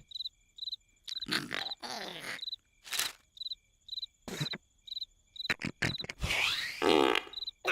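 Cartoon-style snoring: loud, irregular snores and snorts, one drawn out and pitched near the end, over a steady cricket chirp at about two chirps a second.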